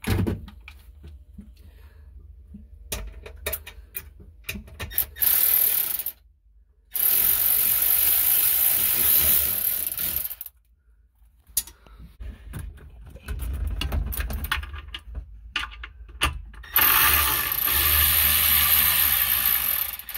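Cordless ratchet with a socket on an extension, running in several bursts of a few seconds each as it undoes the fasteners holding a Sea-Doo's exhaust J-pipe. Scattered clicks of the tool are heard between the runs.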